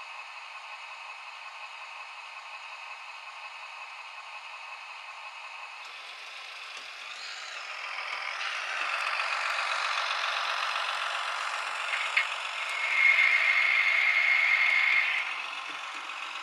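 H0-scale model railbus running in along the layout's track: a rattle and clatter of small wheels on the rails that grows louder about halfway through, with a sharp click and then a steady high tone lasting about two seconds near the end.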